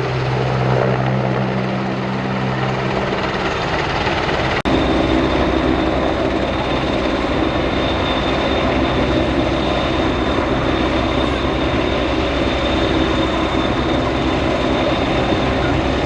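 Aircraft engine running loud and steady. A brief dropout comes about four and a half seconds in, and after it the engine's tone settles at a different pitch.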